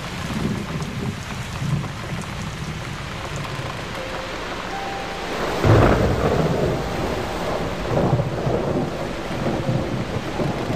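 Steady rain with thunder: a loud thunderclap breaks about six seconds in, then rumbles on in swells.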